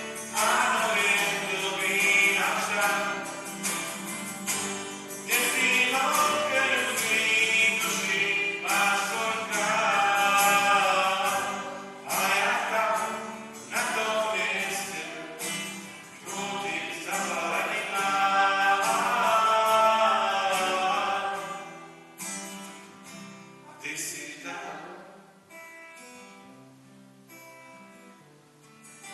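A church hymn with sung voices over guitar. The singing stops about 22 seconds in, and the music goes on more quietly.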